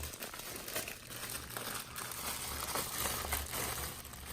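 Plastic packaging crinkling and rustling irregularly as accessory pieces are unwrapped and handled.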